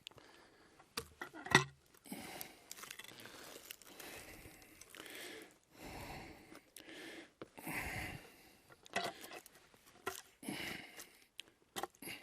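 Scattered handling noises, rustling and crunching, with a sharp knock about one and a half seconds in; no saw or engine running.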